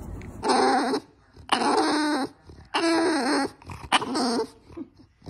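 A dog giving four drawn-out whining, grumbling calls, one after another, each about half a second to a second long.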